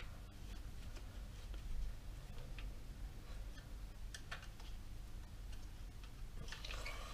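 A few sharp, scattered clicks and taps of small trimmer parts and hand tools being handled, with a short cluster of clicks and rustling near the end, over a low steady hum.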